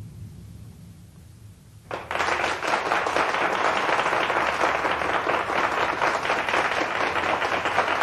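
Audience applause breaking out suddenly about two seconds in, after a short lull, and going on steadily.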